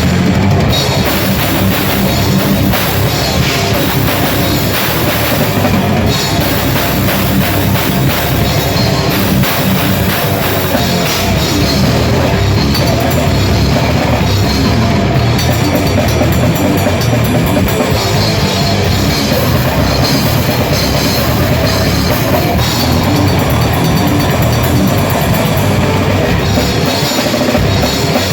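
A grindcore band playing live at full volume, loud and dense, with the drum kit to the fore.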